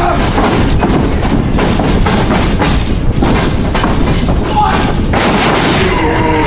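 Repeated dull thuds, typical of wrestlers hitting the ring mat, over loud, dense background noise with music in the mix.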